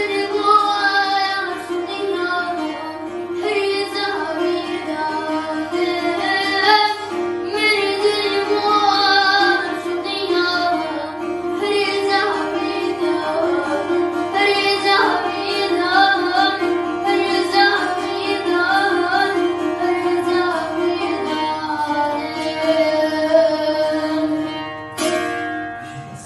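A boy singing an ornamented, wavering melody, accompanied by a long-necked plucked lute keeping up a steady drone beneath him. The song stops just before the end.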